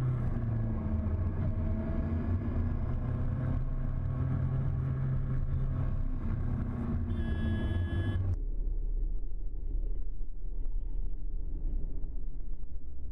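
Sport motorcycle engine running steadily at highway speed, with wind rush. About seven seconds in a brief high-pitched tone sounds, and a second later the engine note cuts away abruptly, leaving low rumble and wind noise.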